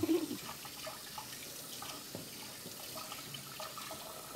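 Kitchen tap running as a knife is rinsed under it, a steady hiss of water with a few light knocks and clinks.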